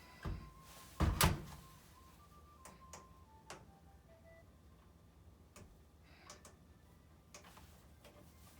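A few knocks and clicks, the loudest a double knock about a second in, over faint scattered notes of telephone hold music.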